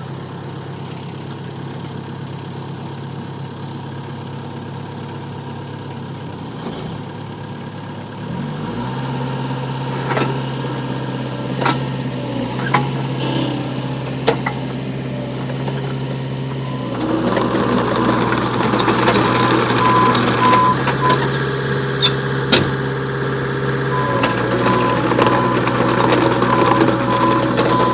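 Mini excavator's diesel engine running just after start-up, its speed stepping up about a third of the way in. From about halfway the hydraulics are worked, with louder working noise, a few sharp clanks and a high pulsing beep near the end.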